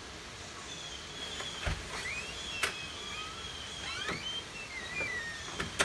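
Steady hiss of pouring rain, with short high chirps over it and a few sharp knocks.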